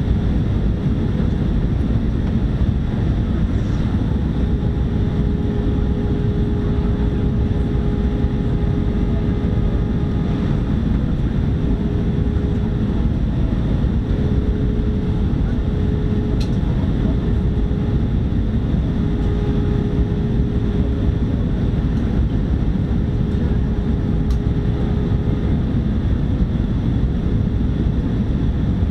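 Cabin noise inside an Airbus A319 airliner during its approach: a dense, steady rush of airflow and engine noise, with a steady hum-like tone joining about four seconds in.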